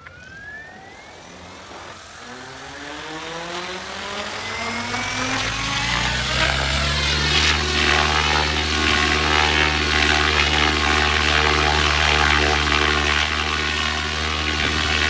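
Radio-controlled model helicopter's rotor spooling up, a whine rising in pitch and getting louder over the first seven seconds or so. It then holds steady as the helicopter hovers under load, pulling on a tethered pack of bottled water.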